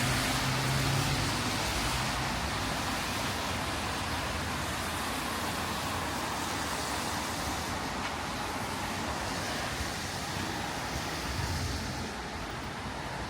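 Steady hiss of rain and car tyres on a wet street, with a car's engine hum passing and fading out in the first second or two.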